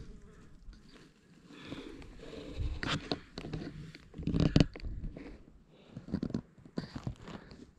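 Irregular rustling, crinkling and clicking handling noises, like gear or clothing being moved, with the loudest crackles around three and four and a half seconds in.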